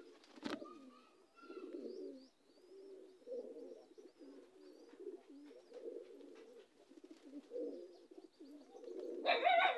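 Domestic pigeons cooing, a low murmuring repeated over and over, with a single sharp click about half a second in.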